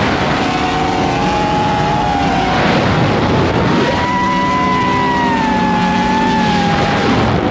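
Off-road race vehicle engines running at high revs, their pitch rising and falling with the throttle, more than one engine heard at once.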